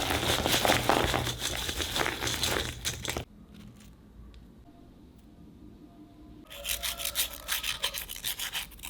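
Crispy fried French fries crunching and rustling: a dense crackle for about three seconds, a quiet pause, then a run of sharp crunches.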